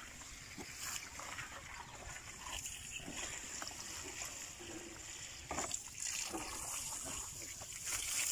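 Water from a hose splashing and trickling onto a concrete footing cast the day before, wetting it down to cure.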